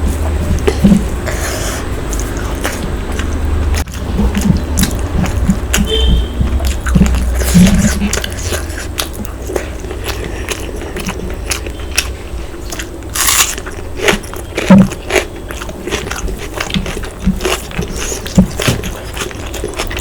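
Close-miked eating sounds: wet chewing, lip smacks and bites of mutton curry and rice, with a few louder crunchy bites, over a steady low hum.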